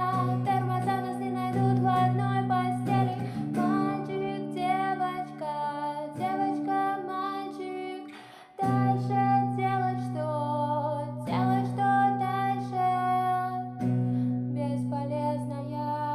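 Music: a melody line over steady low sustained notes. It drops out briefly a little past halfway, then starts again.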